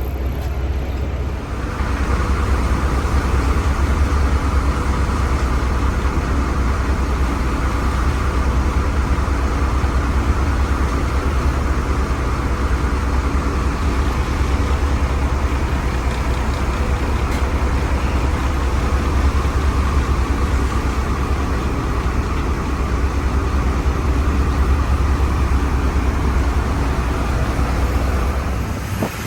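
Motorboat engine running steadily under way, stepping up in level about a second and a half in as the boat speeds up, with a steady rush of wind and water over it.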